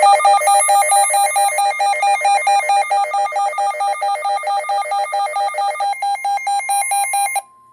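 Emergency Alert System attention tone opening a severe thunderstorm warning: a loud, harsh warbling tone that pulses about four to five times a second. It cuts off abruptly near the end, leaving a faint steady tone.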